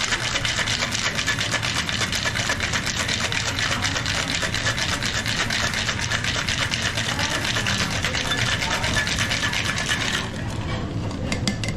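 Ice cubes rattling hard inside a cocktail shaker being shaken fast and steadily with the drink inside, stopping about ten seconds in. A few sharp knocks follow near the end.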